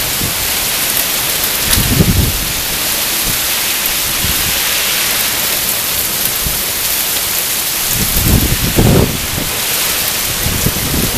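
Heavy thunderstorm rain pouring steadily, a dense hiss of rain on surfaces. Brief low rumbles come in about two seconds in and again near the end.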